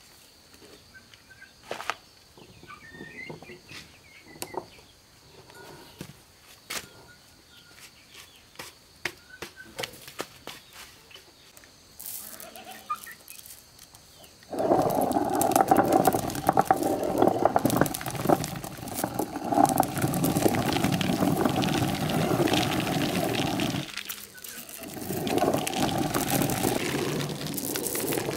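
Scattered knocks and clicks, then a corn grinding mill starts abruptly about halfway through and runs loudly and steadily, cutting out for about a second near the end before running again.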